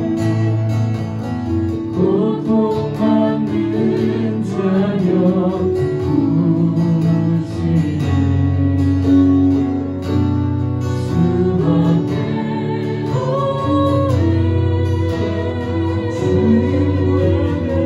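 Praise song sung by a small group of men and women into microphones, with acoustic guitar accompaniment.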